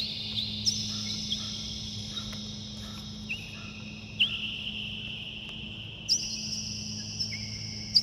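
High, clear chime tones struck at irregular moments every second or two, each ringing on for a few seconds so that several pitches overlap, over a steady low hum.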